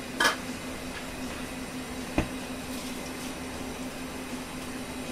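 Steady hum of kitchen ventilation, with a constant low tone under it. A short clatter comes just after the start, and a single sharp knock about two seconds in.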